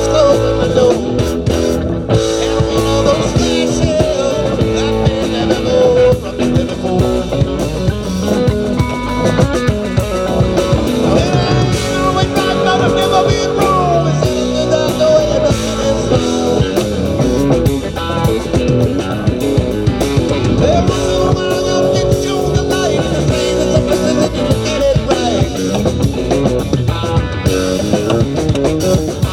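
Live band playing a rock jam: electric guitar lines, some with bent notes, over bass and a drum kit.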